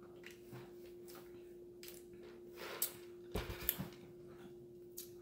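Faint sipping through a straw from a fountain-drink cup, then a knock about three and a half seconds in as the cup is set down on the table, with a small click just after. A steady low hum runs underneath.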